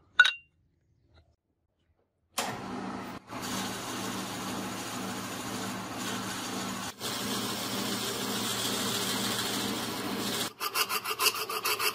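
A sharp knock, then a metal lathe starts running with a steady motor hum while a twist drill bores lengthwise into a spinning wooden handle, shaving the wood. Near the end the sound changes to a fast pulsing.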